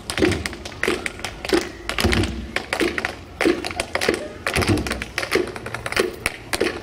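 Tap shoes clicking on a portable dance board in quick, uneven rhythmic runs of taps, with low thuds among them.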